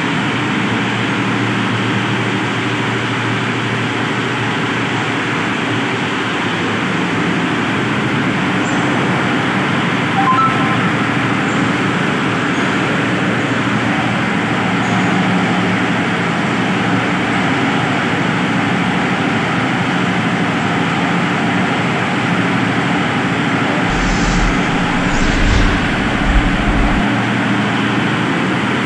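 Rotary drum compost sieve (trommel) running on test, a steady mechanical drone of its drive and turning mesh drum, with a few low bumps near the end.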